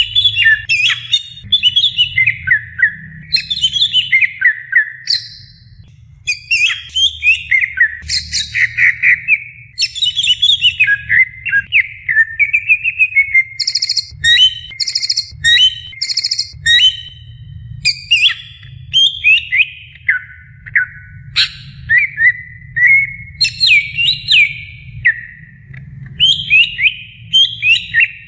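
Green leafbird (cucak ijo) in full song: a long, varied run of quick whistled phrases, rapid trills and chattering notes, broken by short pauses. A faint low rumble sits underneath.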